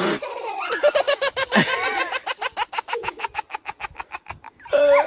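A person laughing hard: a long run of quick, even "ha-ha-ha" pulses lasting about three and a half seconds, followed by a short voiced sound near the end.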